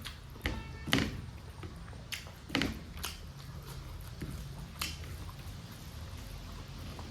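A person eating: a few short, sharp mouth clicks and smacks of chewing, loudest about one second and two and a half seconds in, over a steady low hum.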